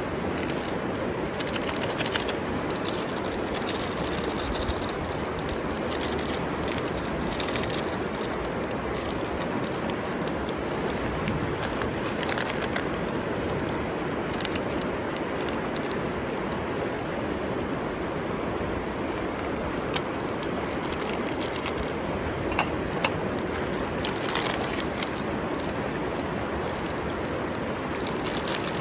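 Steady rush of flowing river water, with scattered small crackles and clicks over it and a few sharper ticks in the last third.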